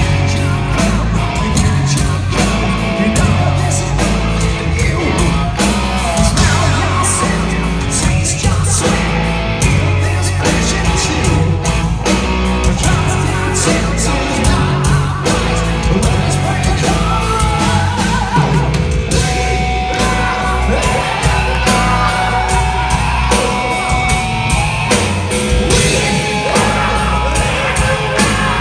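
Hard rock band playing live, with electric guitar, bass guitar and drum kit over a steady beat, and a male lead singer singing loudly at the microphone. Heard from the audience floor of a concert hall.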